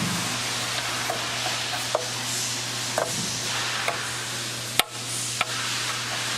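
Ewag RS12 insert grinder running under power with a steady hiss and a low hum, while its handles and slides are worked: several sharp clicks and knocks, the loudest just before the five-second mark.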